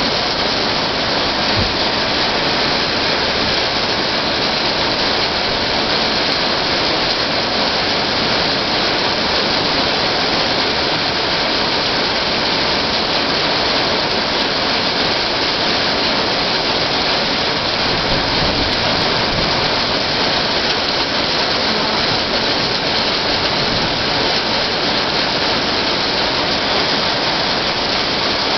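Heavy rain mixed with hail falling hard on a concrete driveway and parked cars: a steady, dense hiss.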